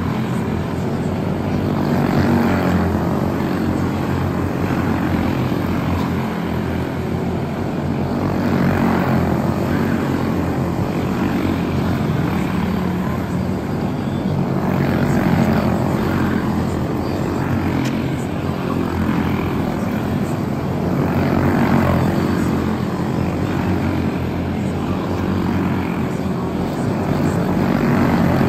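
A pack of Senior Animal class quarter midget race cars, powered by Briggs & Stratton Animal single-cylinder engines, running flat out around a small oval. The buzzing engines swell loudest about every six seconds as the pack passes once a lap.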